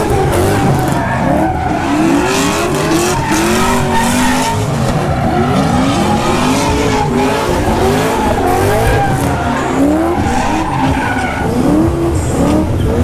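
Drift cars sliding with tyres screeching, engines revving up and down over and over as the throttle is worked through the slide.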